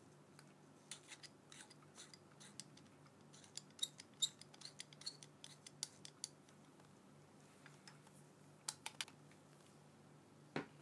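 Quick, light clicks and ticks of small hard parts being handled: a clip-on phone camera lens and its clip turned and fitted in gloved hands. They come in irregular clusters, with a louder knock right at the end.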